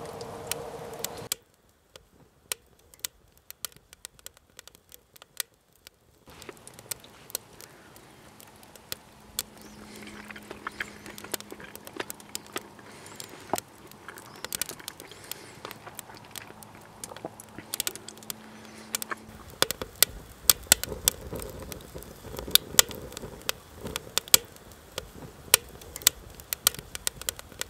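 Wood fire crackling in a homemade ammo-box wood stove: scattered sharp pops and snaps, sparse at first and busier and louder from about two-thirds of the way through.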